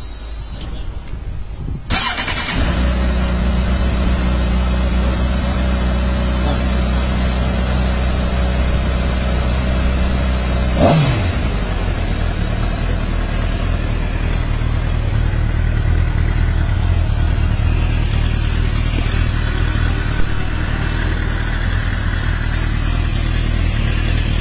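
Suzuki GSX-R sport bike's inline-four engine starting about two seconds in, then idling steadily. One quick rev blip comes about eleven seconds in before it settles back to idle.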